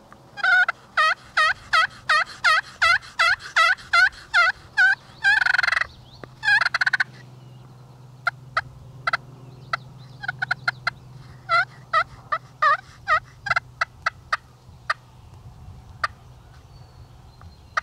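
Wild turkeys, young jakes, calling at close range. A fast regular run of calls, about three a second, comes first, with one harsher call in the middle. Then come sharp single notes spaced out, the alarm putts of turkeys that have spotted the hunters.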